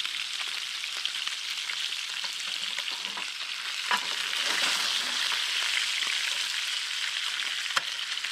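Grayling frying in a pan with oil and pork fat: a steady sizzle that grows louder about halfway through, with two sharp clicks, one about four seconds in and one near the end.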